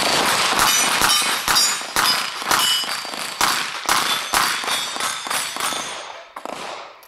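A rapid string of shots from an eight-shot revolver, about two a second, each followed by the ringing clang of a steel plate being hit. The string ends about six seconds in.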